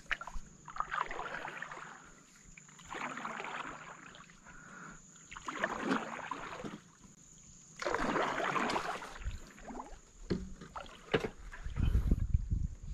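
Repeated swishes of moving water, about every two to three seconds, with a few low thumps near the end.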